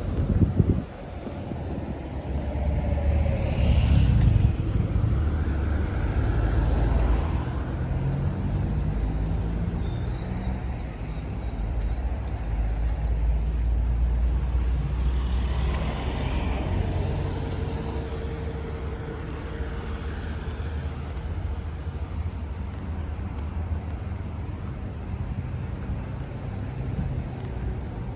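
Road traffic: cars passing one after another, their engine and tyre noise swelling and fading over a steady low rumble.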